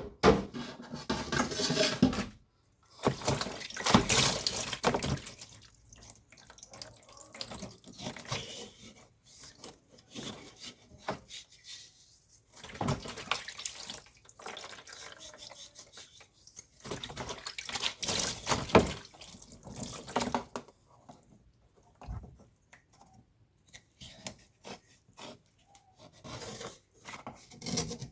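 Water pouring and splashing in irregular bursts with short pauses, as when water is handled by hand in a sink or basin.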